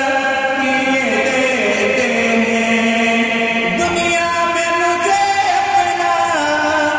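A man singing a naat (Islamic devotional song) into a microphone with no instruments, holding long notes and sliding slowly from one pitch to the next.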